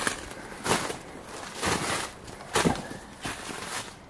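Footsteps with brush rustling along an overgrown trail: about five uneven, scuffing steps, each a short noisy crunch.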